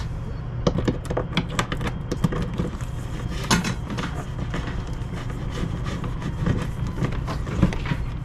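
A bundle of antenna cables being handled and pulled through a drilled hole in a wooden deck: scattered light knocks, clicks and rubbing as the cables slide and tap against the wood, over a steady low rumble.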